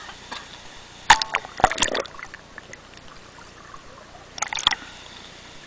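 River water splashing and sloshing around a camera held at the surface and dipped under, with short sharp splashes about a second in, again near two seconds, and once more near the end.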